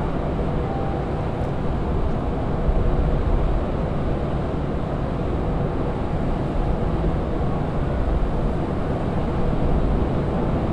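Steady low rumble of the moored ferry Ogasawara Maru's machinery running at the berth, with wind buffeting the microphone.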